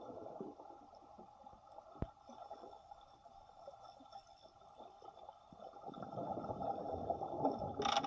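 Water sloshing and gurgling, dipping and then swelling louder over the last couple of seconds, with one sharp click about two seconds in.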